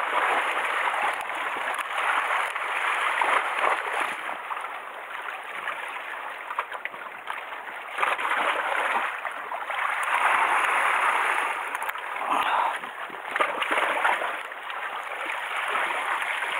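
Sea water washing and splashing over shore rocks, swelling and easing several times as the waves surge in and drain away.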